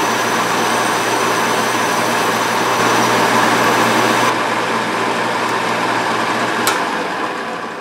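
Atlas metal lathe running with its electric motor humming while the tool faces the base of an aluminium chainsaw cylinder, cutting off chips to lower the cylinder for tighter squish. The high cutting hiss stops a little over halfway through, and the sound fades near the end.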